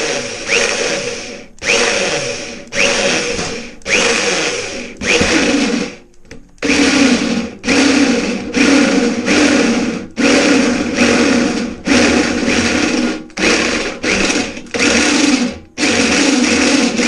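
Hand-held electric drill boring into stainless steel sheet, run in about fifteen short bursts of roughly a second each, the motor spinning up with a rising whine at the start of each one. The bit is struggling with the stainless and heating quickly, so it is pulsed rather than run continuously.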